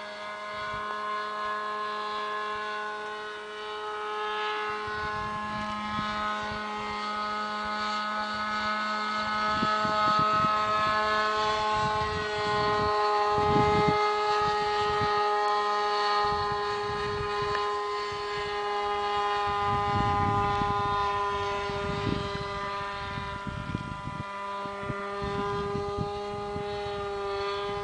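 Radio-controlled model airplane's motor and propeller droning steadily in flight, its pitch drifting slowly up and down as it circles overhead. Several gusts of wind rumble on the microphone.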